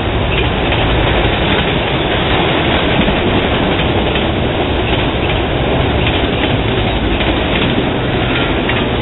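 Autorack freight cars rolling past: a steady, loud rumble of steel wheels on the rails, with occasional clicks.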